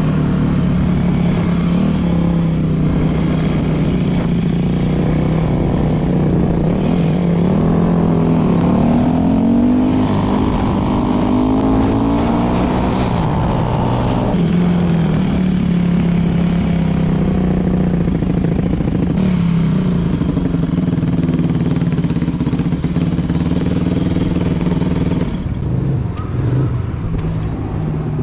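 Yamaha YZ250 two-stroke single-cylinder dirt bike engine running under way, heard close up from the bike. Its pitch climbs and drops in steps with the throttle and gear changes through the middle, and it eases off to a lower, quieter run near the end as the bike slows.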